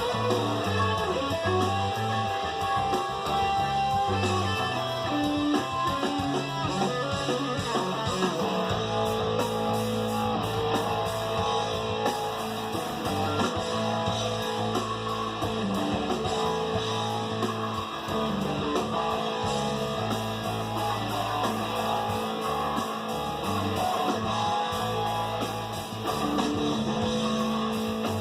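Guitar-led music playing steadily, with a bass line under the strummed and plucked guitar.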